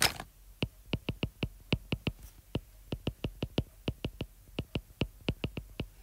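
Stylus tip tapping on a tablet's glass screen while handwriting Korean words: an uneven run of sharp ticks, about six a second.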